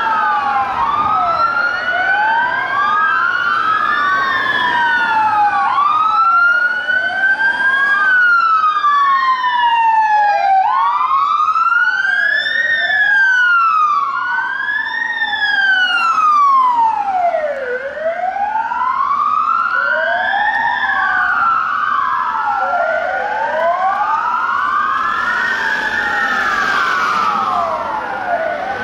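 Wailing sirens of a convoy of armoured police Land Rovers, several going at once and out of step with each other, each sweeping up and down over a couple of seconds.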